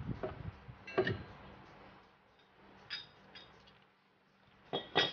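A few sharp metal clinks and knocks from hands working with tools and parts on a car's front strut and suspension, each with a brief ringing. The loudest comes about a second in, with a cluster near the end.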